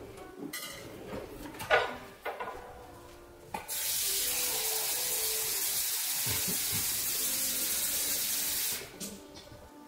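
Kitchen tap running steadily for about five seconds, filling a glass measuring cup with water. A few knocks and clunks come before it, the loudest about two seconds in.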